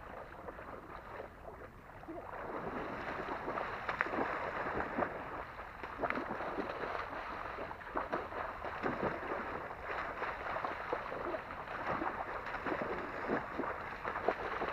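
A Saint Bernard splashing through shallow lake water in a run of repeated splashes and sloshing, busier from about two seconds in.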